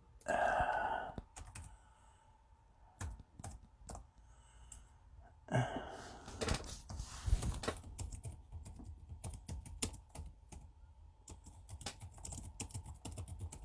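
Typing on a computer keyboard: irregular key clicks, scattered at first and in quick runs through the second half. A short breathy sound comes about half a second in and again near the middle.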